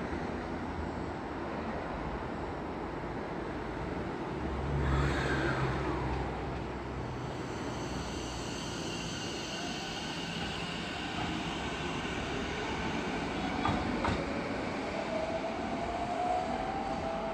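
Sanyo Electric Railway 6000 series electric train pulling out of the station, its traction motors whining and rising slowly in pitch as it picks up speed, over wheel and rail rumble.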